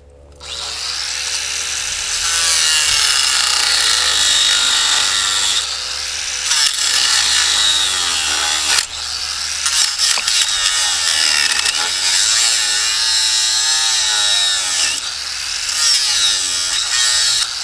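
Angle grinder spinning up about half a second in and grinding metal off a lawnmower, its high whine wavering in pitch as the disc is pressed into the work and eased off, with a few brief dips.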